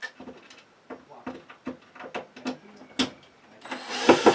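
Series of small clicks and rattles of a drill chuck being loosened and changed, then a louder, harsher burst of noise in the last second.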